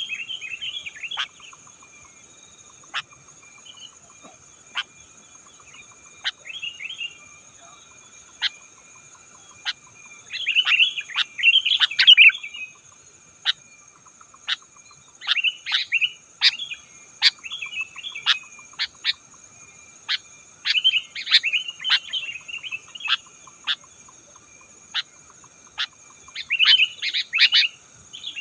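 Sooty-headed bulbul (kutilang) singing: bouts of rapid, bubbly chirping phrases, the loudest about ten to twelve seconds in and again near the end, with short sharp single notes between them. A steady high-pitched insect-like hum runs underneath.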